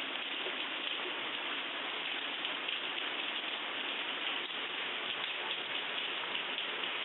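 Steady, heavy rain pouring down as an even hiss.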